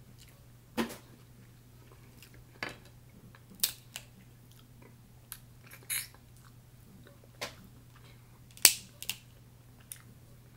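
Snow crab leg shells cracking and being picked apart by hand, mixed with close-up chewing and lip smacks: about ten short, sharp cracks and clicks at irregular intervals, the loudest near the end.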